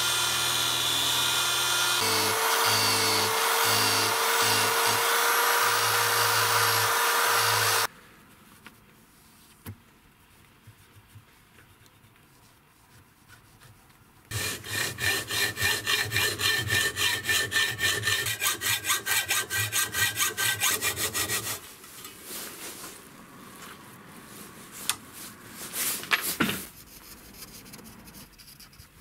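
High-speed rotary tool with a felt polishing wheel running against a steel knife blade for about eight seconds, then stopping. After a pause come quick back-and-forth rubbing strokes, about four a second for some seven seconds, as the blade is rubbed down by hand. Quieter handling and a few clicks follow.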